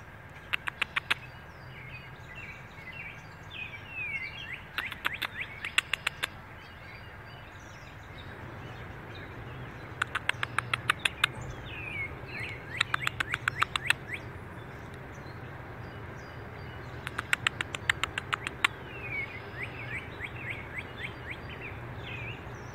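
A lure noise made to coax coyote pups out from their den under a shed: five bursts of rapid, sharp squeaky clicks, several clicks to a burst, repeated every few seconds. Short falling bird chirps come between the bursts.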